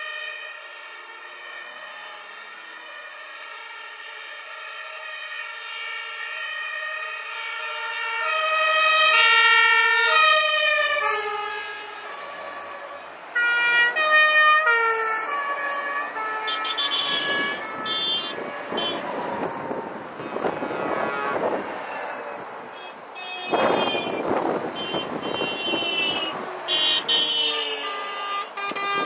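Two-tone sirens of fire engines in a convoy sounding together, their alternating high and low notes overlapping and swelling loudest as one passes about nine seconds in. From about halfway on, the engines and tyres of heavy trucks and coaches driving past close by rush in, in loud swells over the sirens.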